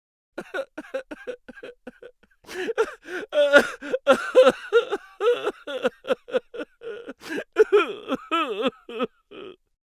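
Cartoon crying sound effects: a voice sobbing in quick, short catches, sparse at first and then a dense run from about two and a half seconds in, with a few wavering wails near the end.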